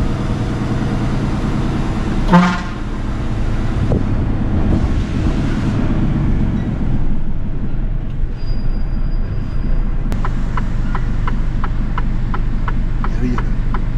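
Mercedes-Benz truck engine running steadily, heard from inside the cab while driving. About two seconds in, a horn gives one short toot. From about ten seconds in there is a regular ticking, roughly three ticks a second.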